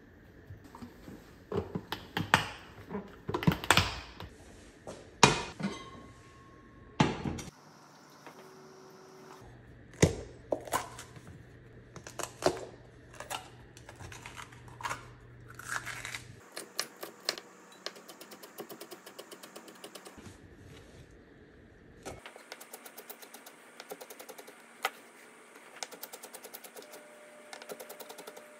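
Chef's knife chopping on a wooden cutting board: scattered knocks and clatter, loudest in the first several seconds, then a fast, even run of quick knife taps dicing a bell pepper near the end.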